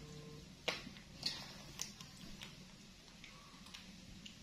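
Faint, irregular clicks and small taps of handling noise over a low steady hum, with three sharper clicks in the first two seconds.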